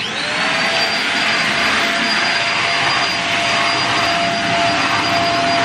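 Stick vacuum cleaner switched on, its motor whine rising briefly as it spins up and then running at a steady, loud pitch over the rush of air.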